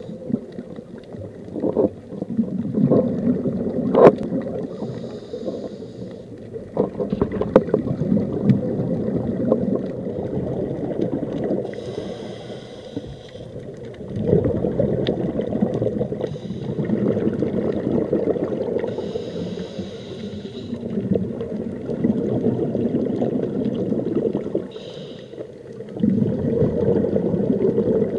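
Scuba diver breathing through a regulator, heard underwater: a short hissing inhale every six or seven seconds, with longer bubbling, gurgling exhales between them. A few sharp knocks come in the first few seconds, the loudest about four seconds in.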